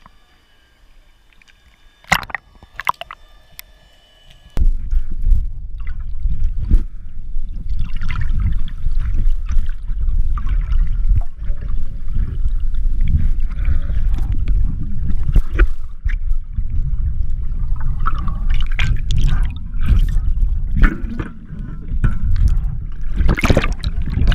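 Water gurgling and sloshing with splashes, heard loud and muffled, coming in suddenly about four and a half seconds in after a few sharp clicks in near quiet.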